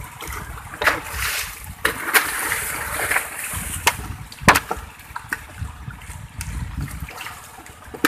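A hooked tuna thrashing at the side of an outrigger boat as it is hauled in on a hand line. It throws up irregular splashes, with several sharp slaps of water.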